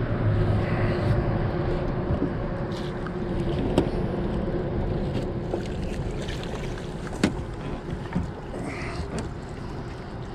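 Steady sound of a small fishing boat on the water, a faint hum under water and wind noise, with a couple of sharp knocks about four and seven seconds in.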